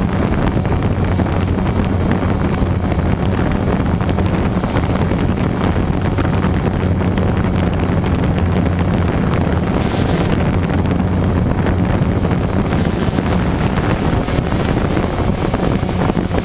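Quadcopter drone's motors and propellers humming steadily, heard close up from the camera it carries, with wind noise over the microphone and a brief gust about ten seconds in.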